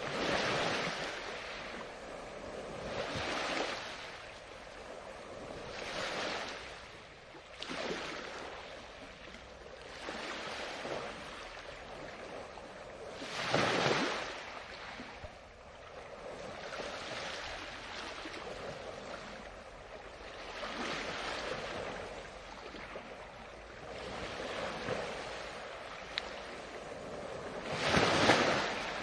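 Ocean waves washing in one after another, swelling and fading every two to three seconds, with the biggest ones breaking about halfway through and again near the end.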